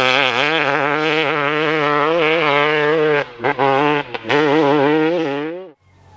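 Two-stroke dirt bike engine revving hard at a steady, fast-wobbling pitch. The throttle is briefly chopped twice, and the sound cuts off suddenly near the end.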